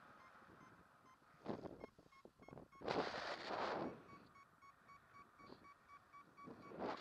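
Paragliding variometer beeping in quick short pips, several a second, the signal of the glider climbing in lift. Gusts of wind rush over the microphone, loudest about three seconds in.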